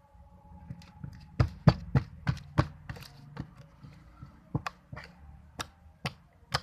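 A series of about a dozen sharp, irregular taps and clicks, the loudest coming close together in the first couple of seconds.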